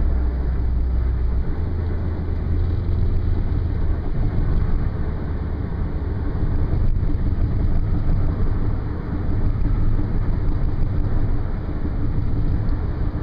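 Steady road noise inside a moving car's cabin at highway speed: a continuous low rumble of tyres and engine.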